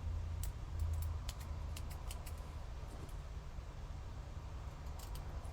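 Scissors snipping card to cut a banner notch, heard as a few faint, irregular clicks over a steady low hum.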